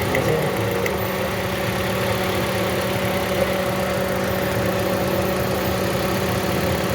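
Toyota Corolla four-cylinder petrol engine idling steadily with a misfire: one cylinder is not firing, even though the ignition coils have been replaced.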